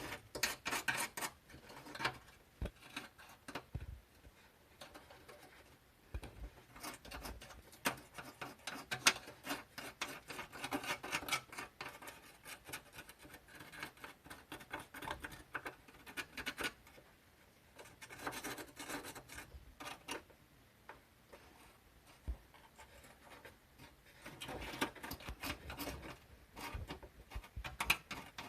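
Hand scraping and rubbing at rusted car bodywork: rapid, irregular rasping strokes in bursts, with short pauses between them.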